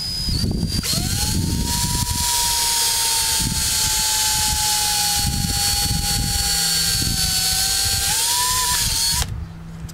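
Cordless drill with a 7/32-inch bit drilling out a small hole in a fog-light bracket. Its motor whine holds a steady pitch that sags slowly as it cuts, rises briefly near the end and stops about nine seconds in.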